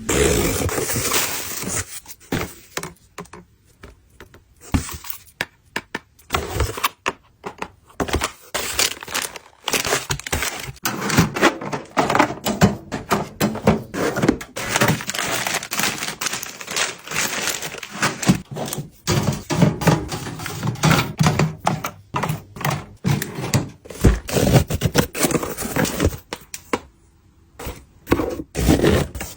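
Packaging and boxed items being handled and opened: irregular knocks, thunks and crinkling, with short pauses.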